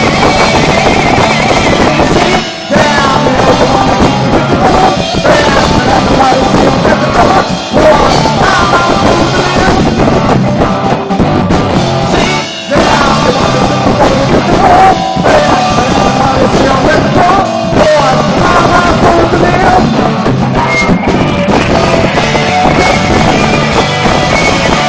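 Live rock band playing loudly, drums and guitars together, with the sound dropping out briefly three times in the first half.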